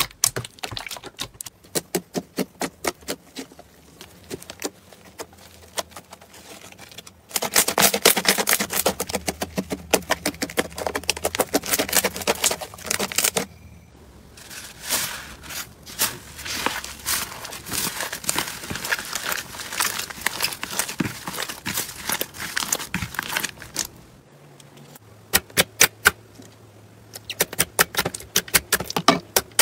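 Slime being squeezed, poked and stretched by hand, giving dense crackling and popping clicks. The texture changes three times, about a quarter, halfway and four-fifths of the way through, as different slimes are handled.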